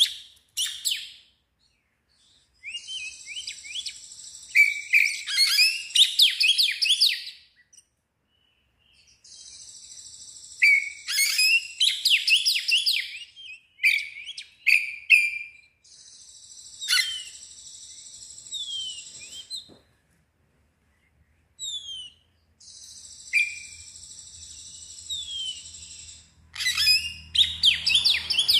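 Oriental magpie-robin in full song: varied phrases of clear whistles, buzzy notes and fast trills, separated by pauses of a second or two.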